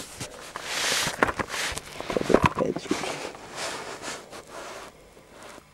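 Handling noise from a cardboard-packaged firework cake being picked up and turned over: rustling swishes with several sharp knocks and clicks, dying away near the end.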